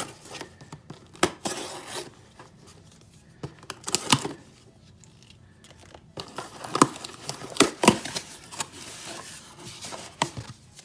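Shipping packaging being torn open and crinkled by hand, with irregular rips, rustles and sharp handling clicks.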